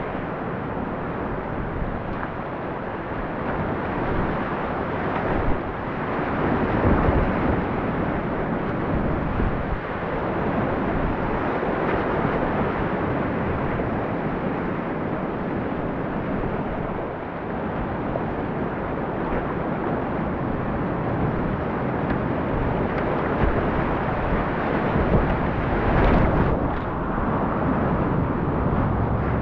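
Rushing whitewater around a kayak running river rapids: a steady, loud rush of water with louder splashing surges about seven seconds in and again near the end.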